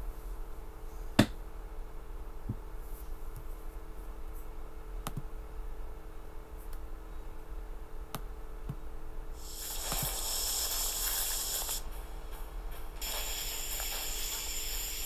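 Room tone with a steady electrical hum and a few sharp clicks, the loudest about a second in. About nine and a half seconds in, a loud, dense high hiss-like noise from the playing video comes in, drops out briefly a couple of seconds later, then resumes.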